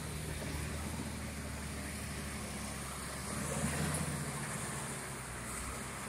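Shantui wheel loader's diesel engine running under load as it pushes fill soil, a steady low drone that swells briefly about three and a half seconds in.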